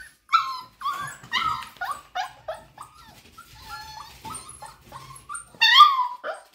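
A litter of four-week-old Golden Retriever puppies whining and yipping together in many short, high calls, loudest near the end: the puppies have just eaten and want to be let outside.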